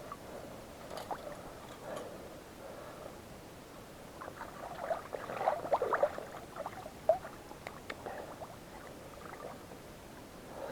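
Irregular rustling, clicks and knocks of hands working at a beaver trap and its catch, with some water sounds; busiest from about four to seven seconds in.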